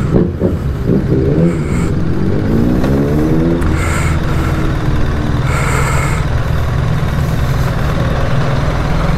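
BMW R1300 GS Adventure's boxer twin engine revving up as the bike pulls away from a stop, then running steadily at low speed. Its note has a slightly mechanical edge, which the rider puts down either to the new engine or to its still being run in.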